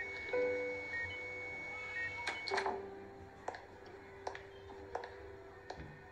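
Soft background music: held notes, then from about two and a half seconds in, single plucked notes roughly every three-quarters of a second. Short electronic beeps come about once a second in the first half.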